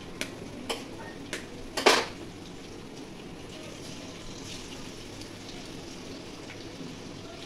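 A few light taps and then a sharper crack about two seconds in, as eggs are knocked against the rim of a steel wok to break them. Under this is a steady low sizzle of vegetables frying in the wok.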